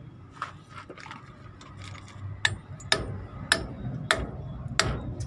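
Hammer blows on steel, driving a kingpin into a Hino truck's steering knuckle and axle beam: five sharp strikes from about halfway through, about one every 0.6 s and getting louder, after a few light taps.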